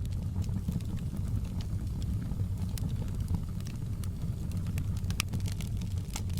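Fire burning in a fireplace: a steady low rumble of flames with scattered sharp crackles and pops.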